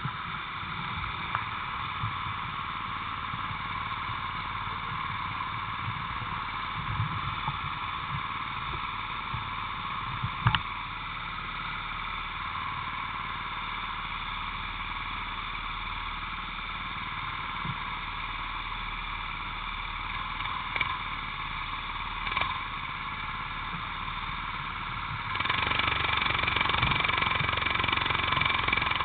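Racing kart engine running steadily, heard from a camera mounted on the kart, with a couple of brief knocks; near the end it gets clearly louder.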